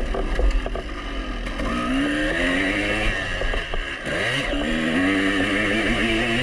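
2003 Honda CR250's single-cylinder two-stroke engine revving hard under throttle, its pitch climbing, falling off sharply about four seconds in, then climbing again. Wind noise on the microphone underneath.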